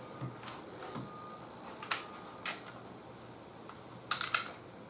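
Sharp clicks from a Glock 19 pistol being worked in the hands, as the trigger is pressed and the slide shifts without the gun firing. A few single clicks come first, then a quick cluster about four seconds in. It is a sign that the slide, forced on over a plunger channel milled through, will not let the pistol work.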